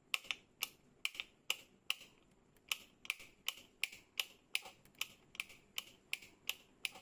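Keys struck on a keyboard: about twenty sharp keystrokes at a steady typing pace of roughly three a second, with a short pause about two seconds in.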